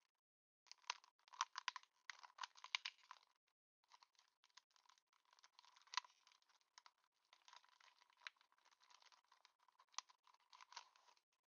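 Faint crinkling and clicking of Pokémon TCG booster pack foil and cards being handled. It comes as a dense bout of crackles for about three seconds, then a brief pause, then lighter crackling with a few sharp snaps.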